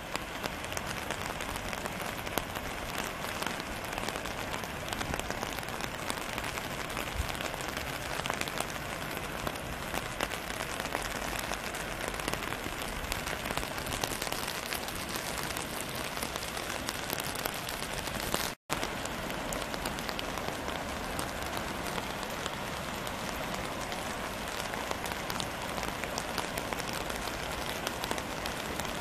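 Steady hiss of water, with rain and running floodwater mixed together. The sound cuts out for a split second about two-thirds of the way through.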